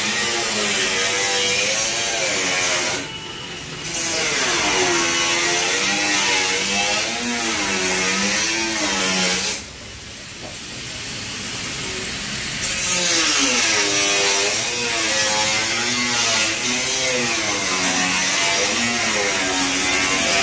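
Compressed-air spray gun hissing as it sprays paint onto a motorcycle fuel tank, cutting out briefly about three seconds in and again about ten seconds in. A wavering tune runs underneath.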